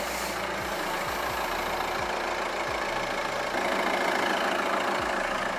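Škoda Octavia II's 1.9 TDI diesel engine running, a steady engine and road noise with a faint low pulse repeating about every three-quarters of a second.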